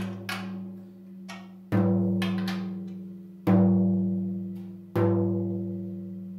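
13-inch tom struck near the edge with a drumstick: a few light taps, then three firm strikes about a second and a half apart, each ringing out with a long, slowly fading low tone. The drum is being fine-tuned close to A2, with both heads at matching lug pitches.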